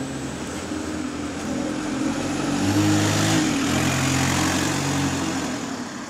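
Alexander Dennis Enviro200 single-deck bus's diesel engine accelerating away, its note dropping briefly a little past halfway as it changes gear. A low bass drone runs through the exhaust from a small exhaust leak that is starting to develop.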